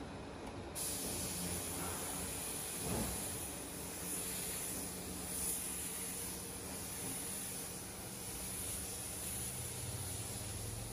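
Compressed-air spray gun hissing steadily as it sprays a paint finish coat onto a wooden slab; the hiss starts about a second in.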